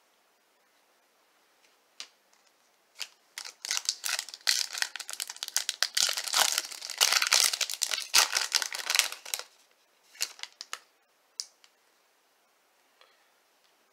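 Foil trading-card pack wrapper being torn open and crinkled. A dense crackle lasts about six seconds, with a few separate rustles and clicks before and after.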